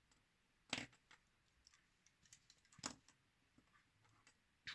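Small hard clicks and taps of mechanical pencils being handled and set down on a table, two sharper knocks among a few faint ticks.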